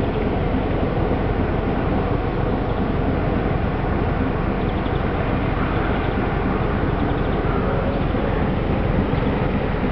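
The steady low drone of an inland motor cargo ship's 620 PS diesel engine under way, mixed with the rush of water at its bow wave.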